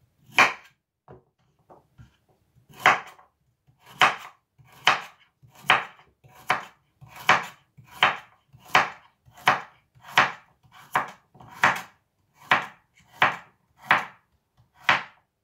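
Chef's knife slicing a raw carrot into rounds on a wooden chopping board, each cut ending in a sharp knock of the blade on the board. One cut, a short pause with faint taps, then a steady run of cuts at a little more than one a second.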